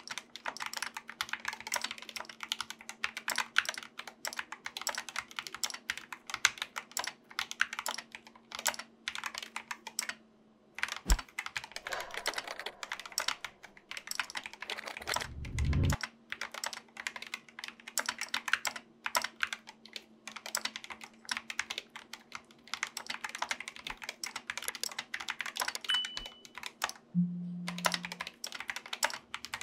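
Fast, continuous typing on a GK61 60% mechanical keyboard with lubed Gateron optical switches: a dense stream of key clacks with a brief pause. A short low rumble comes about halfway through.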